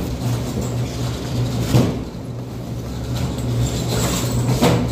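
Steady low mechanical hum of background room noise, with two short knocks, one about two seconds in and one near the end.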